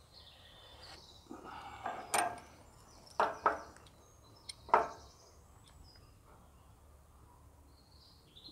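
Bolts and washers being handled and fitted through wooden slats on a metal trailer frame: a few sharp knocks and clicks between about one and five seconds in, the loudest near five seconds.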